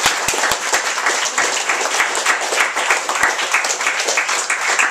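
Audience applauding: dense clapping from many hands, with no break.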